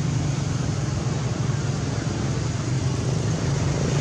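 Steady low rumbling noise with a constant hiss over it, unbroken and even in level, with no distinct calls or knocks.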